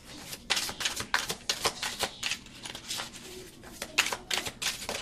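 A tarot deck being shuffled by hand, overhand: an irregular run of quick card clicks and flicks.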